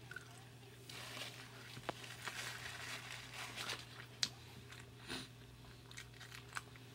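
Close-miked chewing of a mouthful of loaded carne asada fries: soft wet mouth smacks and scattered small clicks, with a few sharper clicks about four and five seconds in, over a faint steady low hum.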